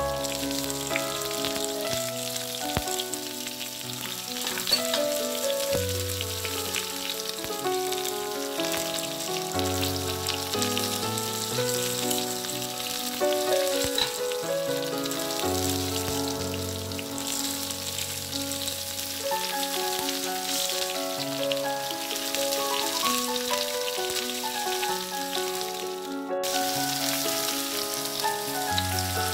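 Zucchini sticks frying on a tawa, sizzling steadily, under background music with a melody and a bass line. Both cut out for a moment about 26 seconds in, then carry on.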